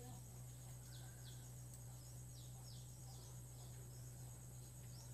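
Faint background room tone: a steady low electrical hum and a steady high whine, with pairs of short falling chirps repeating about every second and a half.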